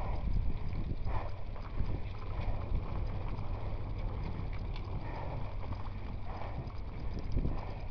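Mountain bike clattering and rattling over a bumpy trail in an irregular knocking rhythm, with a steady low rumble of wind on the microphone.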